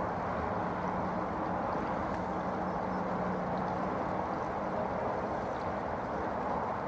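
A shallow river running over stones: a steady, even rush of water.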